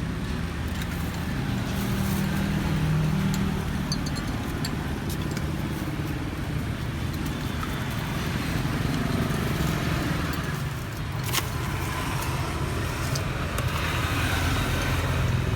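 Street traffic: engines running close by, with a steady low hum and one vehicle passing partway through.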